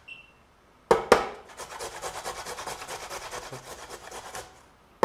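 A carrot being grated on the coarse side of a stainless steel box grater resting on a wooden cutting board: after two sharp knocks about a second in, a quick, even run of rasping strokes that fades out near the end.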